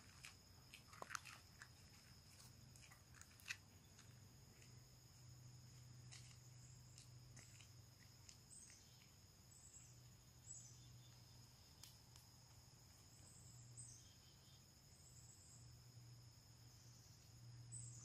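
Near silence: a faint, steady, high-pitched insect drone, with a few faint clicks in the first few seconds and a faint low hum underneath.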